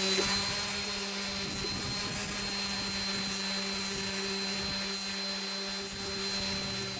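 Hyper Tough 2.4 amp random orbital sander running steadily with an even motor hum and a faint high whine, sanding body filler on a fiberglass speaker box.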